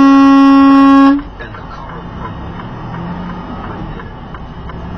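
Semi truck's horn held in one long, loud, steady blast that cuts off about a second in, followed by steady engine and road noise inside the truck's cab.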